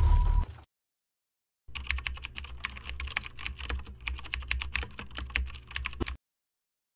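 Keyboard typing sound effect: rapid, irregular key clicks for about four and a half seconds, starting near two seconds in, over a faint low hum. It is preceded by the tail of a low rumbling sound with a steady tone, which cuts off abruptly within the first second.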